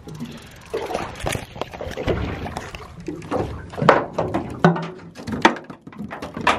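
Irregular knocks and clatter of a fish being handled and lifted aboard an aluminium boat, with water sloshing at the hull.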